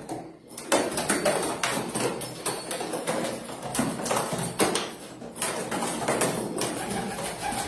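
Domestic pigeons stirring: a rapid, irregular clatter of wing flaps and taps.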